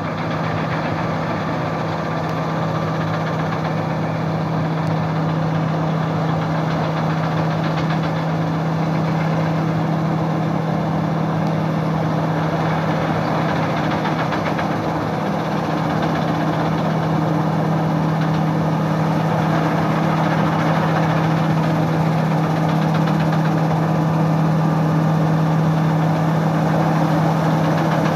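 New Holland Braud 9090X straddle harvesters working along an olive hedgerow: a steady diesel engine hum under a dense, rattling mechanical noise, growing slowly louder as they come closer.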